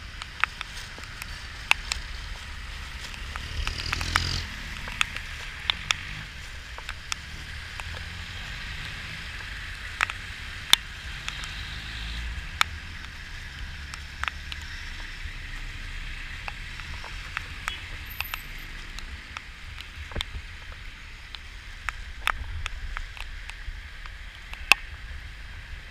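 Heavy rain, with drops striking the GoPro's housing as irregular sharp taps over a steady rain hiss and a low rumble. The hiss swells louder briefly about four seconds in.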